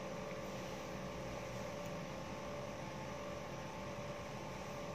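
Steady room tone: a low electrical hum with a faint constant tone over even hiss, with no distinct event.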